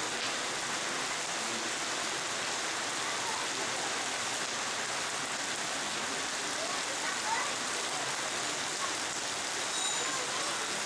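Steady rushing of river water, an even hiss with no rhythm or breaks.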